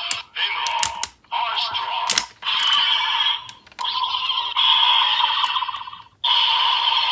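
Electronic sound effects from an Ultraman Z toy's small speaker, played as a run of short bursts about a second long, with sharp clicks between several of them as medals are read.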